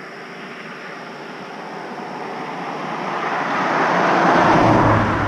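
A motor vehicle going past: its engine and tyre noise grow steadily louder, peak about four and a half seconds in, then begin to fade.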